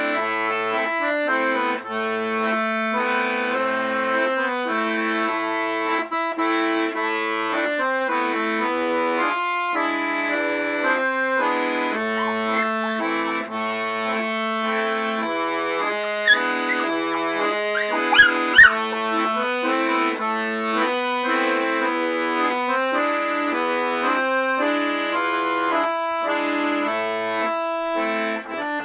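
Piano accordion playing a folk waltz, with full chords and melody in a steady rhythm. About two-thirds of the way through come a few brief high sliding squeaks and two sharp knocks.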